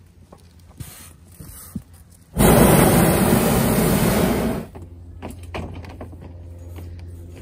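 Hot air balloon propane burner firing one blast of about two seconds, a loud steady roar starting a couple of seconds in. The quieter stretches on either side hold light knocks and a low hum.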